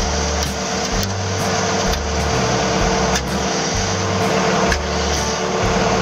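Diesel engines of an excavator and a concrete mixer truck running steadily, the truck's drum turning to discharge concrete down its chute into a hopper. A continuous machine hum with a steady whine over an uneven low rumble.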